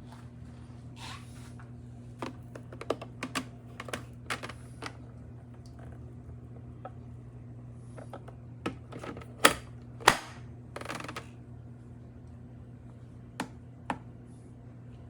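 Scattered clicks, taps and knocks, as of objects being handled, in a few irregular clusters with the loudest pair about ten seconds in, over a steady low electrical hum.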